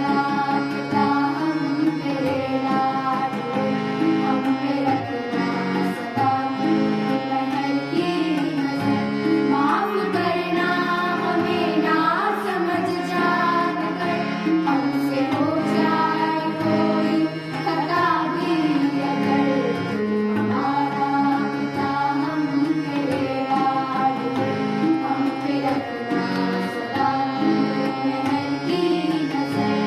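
A prayer song sung in Indian classical style with tabla accompaniment over a sustained drone.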